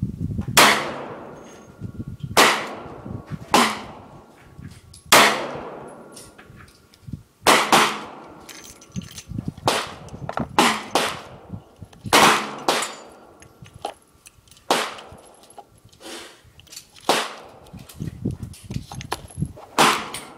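Handgun shots from a Taurus .357 Magnum revolver and neighbouring shooters' guns: about fifteen sharp reports at irregular spacing, one every second or so, each followed by a ringing echo.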